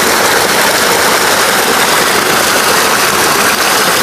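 Water spout (pancoran) pouring into a stone bathing pool, a steady, loud rushing splash.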